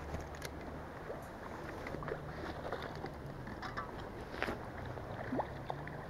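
Shallow river water moving and splashing around a wading angler, with a few faint scattered ticks.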